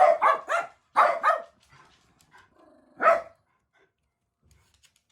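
Jack Russell Terriers barking sharply in a fast run, then two more barks about a second in. A faint whine follows, and one last bark comes about three seconds in.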